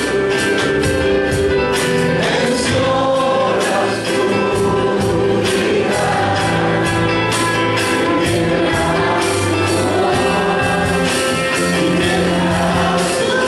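Live worship band with drum kit, electric and acoustic guitars and keyboard, a group of voices singing a Spanish-language worship song over a steady drum beat.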